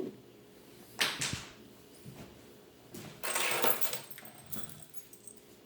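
Handling noises: a knock about a second in, then a longer rustling scrape around three seconds in, with a few light clicks after.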